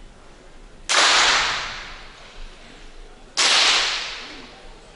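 Two .22 free-pistol shots about two and a half seconds apart, each a sudden crack with a ringing echo that dies away over about a second.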